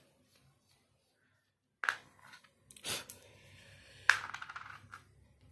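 Small hard parts being handled and set down on a hard surface: a sharp click about two seconds in, a short scrape, then a louder clack about four seconds in with a brief rattle.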